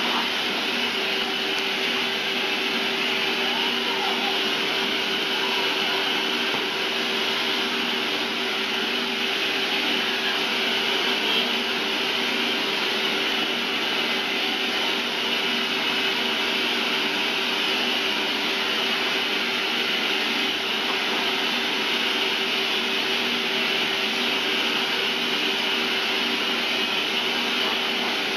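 A motor-driven machine running steadily: an even whir with a constant hum that does not change.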